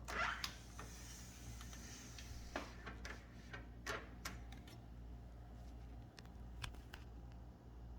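Olympia Traveller de Luxe S portable typewriter being worked: a brief sliding rush at the start, then a few separate sharp mechanical clicks at uneven intervals.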